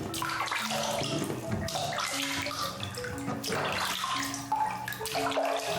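Water running steadily into a bath, with a simple background melody of held notes over it.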